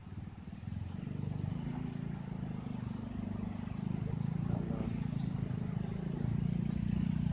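A motor vehicle engine running with a low, even drone that grows louder over the first couple of seconds and then holds.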